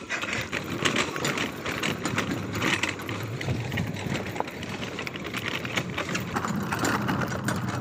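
Small off-road go-kart driving over a dirt track: a steady mechanical running sound, with many small clicks and rattles from the tyres and frame on the rough ground.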